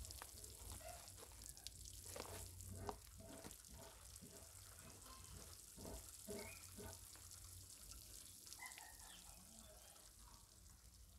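Water sprinkling from a plastic watering can's rose onto soil and young seedlings: a faint, steady spattering hiss.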